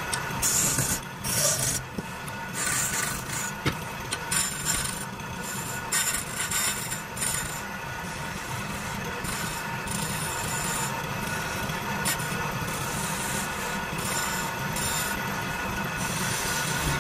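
Wood lathe running steadily while a hand chisel cuts into a spinning wooden stair baluster, a rasping scrape of steel on wood. The scraping comes in uneven bursts as the tool is worked, busiest in the first half.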